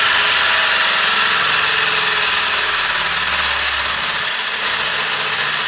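Sewing machine motor running steadily on about 400 volts from a variac, well above its 100–220 volt rating. The level eases a little toward the end.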